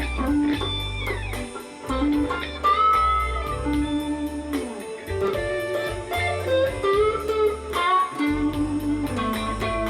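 Electric guitar improvising blues lead lines, with bent notes sliding up and down in pitch, over a backing track of bass and a steady drum beat.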